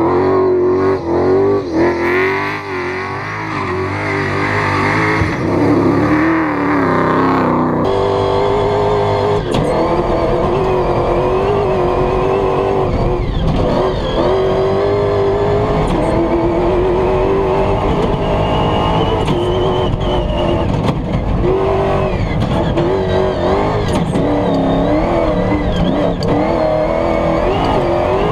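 Toyota Hilux Dakar rally truck's V8 engine at full throttle, its pitch climbing and dropping again and again as it runs up through the gears and lifts for corners, with tyres and loose sand underneath. For the first few seconds it is heard from outside as it pulls away across sand; after that it is heard from inside the cabin.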